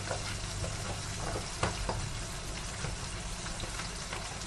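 Rindless bacon sizzling in a hot frying pan on a gas burner: a steady frying hiss broken by small crackling pops, the loudest about a second and a half in.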